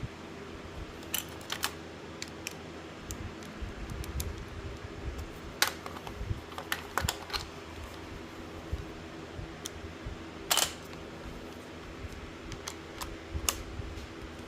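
Irregular sharp metallic clicks and taps of hand tools working on the valve spring compressor on the engine head, over a steady low hum.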